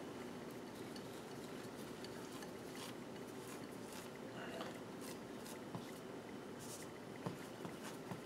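Faint handling sounds of a glass mixing bowl being tilted and shifted, with a few light clicks and soft scrapes as risen bread dough is worked loose from it by hand, over a steady low hiss.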